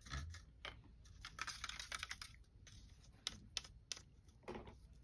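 Light, irregular clicks and taps, bunched into a quick run between about one and two seconds in, with a duller knock near the end.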